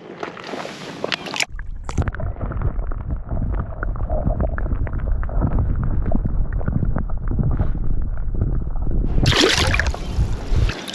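Water sloshing and gurgling, heard muffled and dull with many small knocks, as a crappie is released back into the water. About nine seconds in the sound opens up into clearer, hissy water noise.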